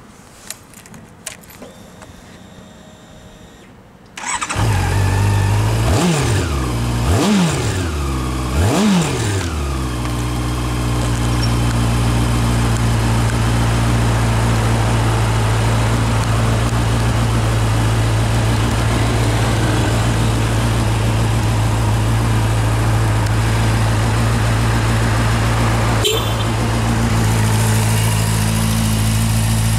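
Honda CB400SF Hyper VTEC Revo's inline-four on its stock exhaust: after a few clicks, the engine starts about four seconds in. It is blipped three times, revs rising and falling quickly, then settles into a steady idle.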